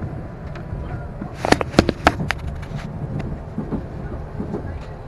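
Passenger train's steady low running rumble heard from inside the carriage. About a second and a half in, a quick run of sharp clicks and knocks comes through, some of them ringing briefly.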